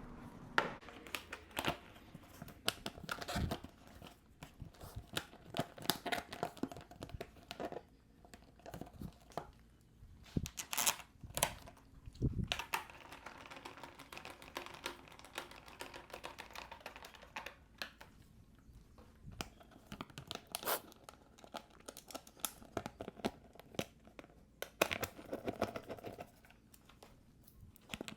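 Hands refitting the rear plastic bodywork on a Yamaha YZ450F dirt bike: irregular clicks, knocks and scraping of plastic panels being handled and pushed into place.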